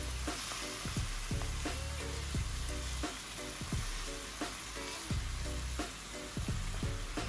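Chicken backs in curry and oil sizzling steadily in a pot, with a little hot water just added.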